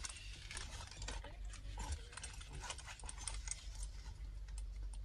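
Light, irregular clicks and rustling from handling a nylon shoulder bag's strap and its metal swivel snap hooks.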